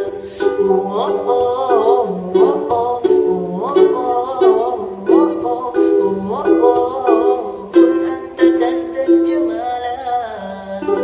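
Unplugged acoustic instrumental music: a steady, repeating pattern of plucked string notes with a melody over it, playing out the song's closing bars.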